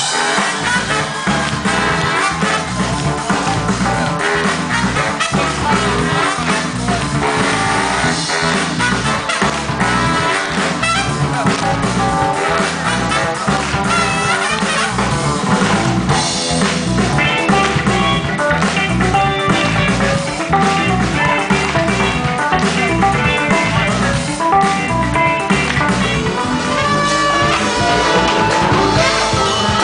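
Live batucada band playing an instrumental passage: a driving, steady drum and percussion rhythm under brass horn lines.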